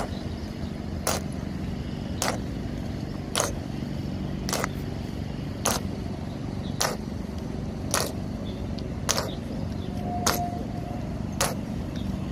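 Slow ceremonial marching: sharp, evenly paced heel strikes of honor guards' boots on stone paving, about one step a second, over a steady low background rumble.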